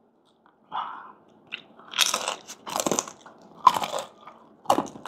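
Crispy fried pork skin being bitten and chewed close to the microphone: four sharp crunches about a second apart.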